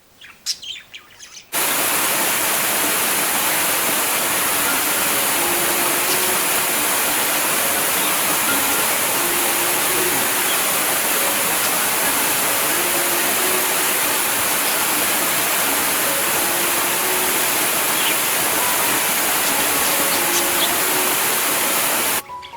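Loud, steady rush of flowing water that cuts in suddenly about a second and a half in and stops abruptly near the end, after a few brief bird chirps.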